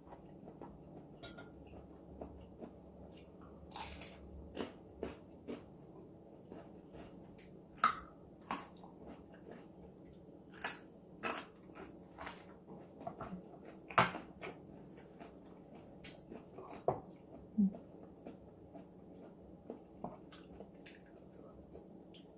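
A person chewing and biting crunchy seafood up close, with scattered sharp crunches and clicks over a quiet background, a few of them much louder than the rest.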